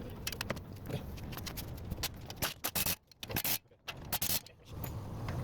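Scraping and a run of sharp metallic clicks and taps from hand work on car parts, with a short lull a little past the middle.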